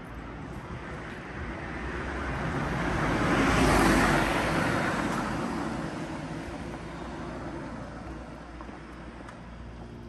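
A road vehicle passing by: its tyre and engine noise swells to a peak about four seconds in, then fades away over the next few seconds.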